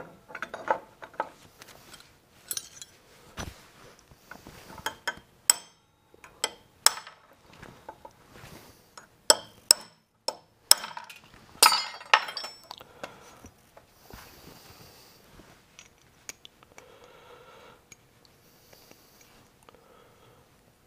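Metal rod tapping the ejector pins of an aluminium injection mold to break the cast plastic parts loose: sharp, irregular metallic clinks and taps, thinning out after about 13 seconds into quieter scraping and handling of the mold.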